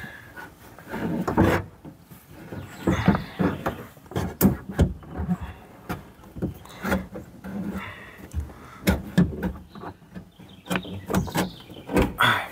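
Irregular knocks, clacks and scrapes as the door lock assembly is worked into a Nissan Versa door's inner cavity by hand, the parts bumping the inside of the door.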